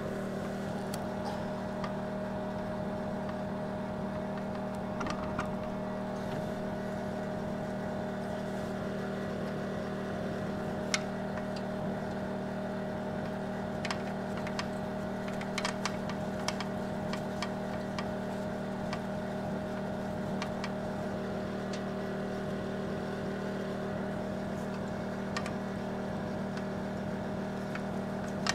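Small engine of a portable generator running at a steady, unchanging hum. Scattered light metallic clicks and clinks come from a new electric drum-brake backing plate being handled and fitted onto a trailer axle spindle.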